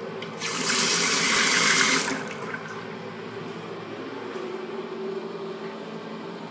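Bathroom sink faucet running into the basin for about a second and a half, then shutting off about two seconds in. A steady low hum of room noise follows.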